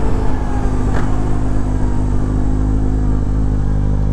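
Benelli 600 motorcycle's inline-four engine slowing off the throttle, its note falling gradually as the bike loses speed, over wind rush. A short click comes about a second in.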